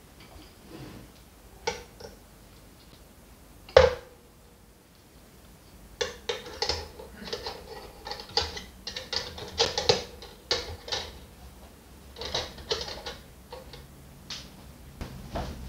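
Wire bun-warming rack of a Gorenje T 1000 E toaster being handled and fitted. A few separate sharp metallic clicks come first, the loudest about four seconds in with a short ring. From about six seconds there is a long run of quick clicks and rattles of wire on metal.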